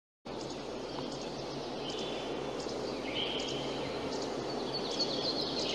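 Outdoor nature ambience: a steady background hiss with small birds chirping, the chirps coming more often in the second half.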